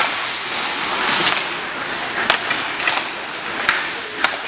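Ice hockey play on a rink: skate blades scraping the ice over a steady arena din, with about four sharp clacks of sticks and puck in the second half.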